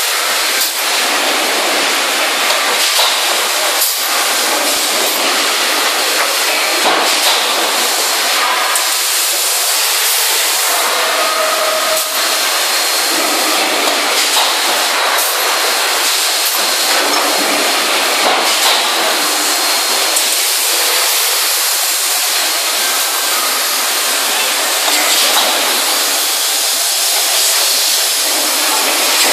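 Steady, loud hissing noise from the machinery of a hot-forging press cell, with a few faint knocks scattered through it.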